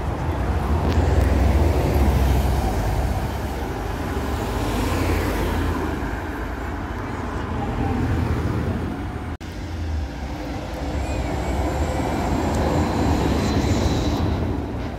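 Autosan Sancity city bus's engine running as the bus drives past and away, a deep rumble loudest in the first few seconds. After a cut partway through, an articulated Solaris trolleybus passes close, with a steady high electric whine from its drive near the end.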